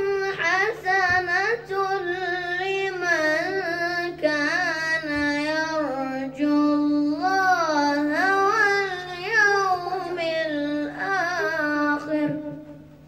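A boy's voice chanting Quranic recitation in long, drawn-out melodic phrases, the held notes bending and wavering, into a microphone. It stops about half a second before the end. A steady low hum runs underneath.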